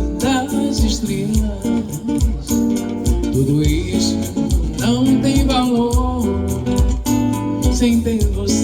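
Live music led by guitar, with a steady bass line and a melodic lead line over it.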